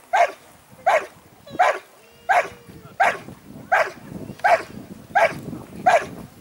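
Belgian Malinois barking steadily at a protection helper standing in a blind, a hold-and-bark: sharp, evenly spaced barks about every 0.7 seconds, nine in all.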